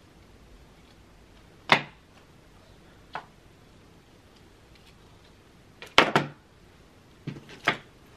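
Sharp clicks and knocks from a flat iron and hair tools being handled, the loudest about two seconds in and a quick cluster of them around six seconds.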